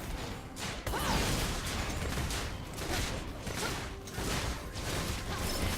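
A person breathing heavily: a run of noisy breaths in and out, each swelling and fading.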